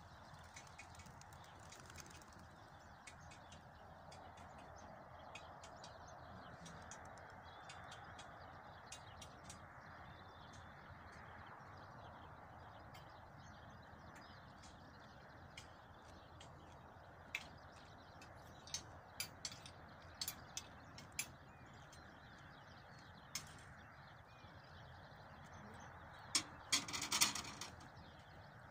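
Quiet open-air background with a faint steady hiss. In the second half come scattered sharp clicks and knocks, a handful about a second apart, with a louder rapid cluster near the end.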